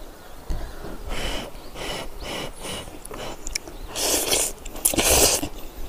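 A person eating hot ramen noodles close to a clip-on microphone: a few soft puffs of breath over the lifted noodles, then two loud slurps about four and five seconds in.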